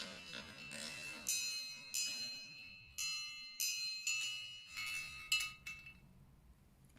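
Marbles on a marble run striking ringing metal chimes: a series of bell-like notes, one to two a second, each ringing on briefly, until the run falls quiet about six seconds in.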